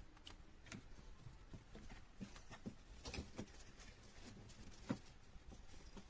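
Faint, scattered light clicks and taps: a small cluster about three seconds in and a sharper single click near the five-second mark.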